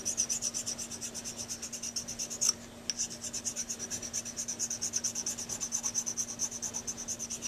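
Fine-cut (number 2) half-round needle file scraping in quick, even back-and-forth strokes across the acrylic-coated tip of a metal saxophone mouthpiece, taking out coarser file marks and feathering the edge. The strokes stop briefly about two and a half seconds in, with a single click, then carry on.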